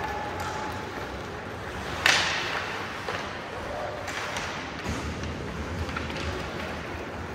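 Ice hockey play in an arena: one sharp, loud bang about two seconds in that rings on briefly, then a few lighter knocks, over a steady background of voices.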